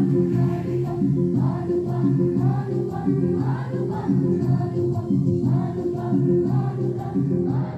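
A group of voices singing a song together in unison, with no break in the singing.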